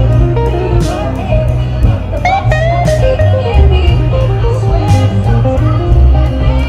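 Band music with electric guitar and bass guitar over a steady beat, with a cymbal hit about every two seconds and a few sliding guitar notes.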